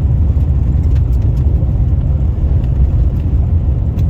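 Steady low road and engine rumble from a moving pickup truck, heard from inside the cab.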